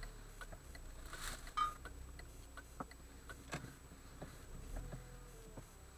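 Scattered light ticks and taps over a low engine and road rumble inside a slowly moving car, picked up by a dashcam's built-in microphone. A short high squeak comes about one and a half seconds in.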